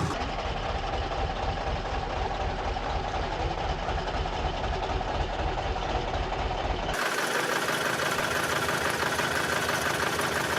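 Road roller's engine running steadily with a pulsing, knocking beat; the sound changes abruptly about seven seconds in, the low rumble dropping away and a higher engine tone remaining.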